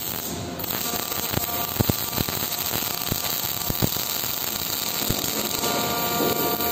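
Gas metal arc (MIG) welding arc burning steadily, set at about 280 amps and 30 volts: a continuous crackling sizzle with a few sharper pops a couple of seconds in and again near four seconds.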